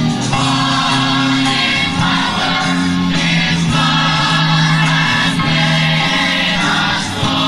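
A choir singing gospel music with instrumental accompaniment, held low notes under the voices.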